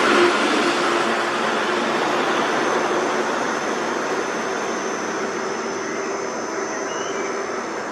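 Motor vehicle running on the road: a steady rushing noise that is loudest just after the start and slowly fades.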